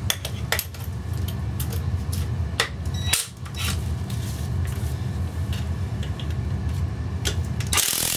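Metal tools clinking and being handled, then near the end a cordless drill driver runs briefly, spinning out a gearbox bolt whose torque has just been broken.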